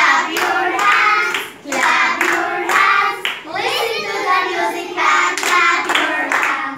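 Children singing with hand clapping; the claps are sharp and repeated throughout the singing.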